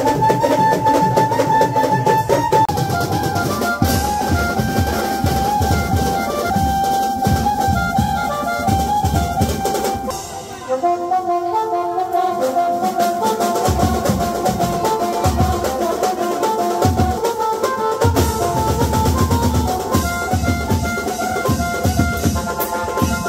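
Wedding banjo band playing dance music: brass horns carry a melody over loud, steady drumming, thinning out briefly about ten seconds in.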